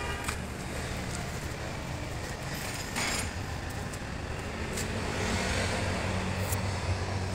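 Steady low mechanical hum and rumble, with a few light knocks.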